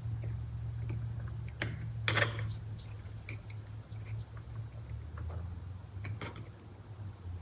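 Small scattered plastic clicks and rattles from fingers working the steering wheel's wiring connectors and their safety pins, busiest about two seconds in, over a low steady hum.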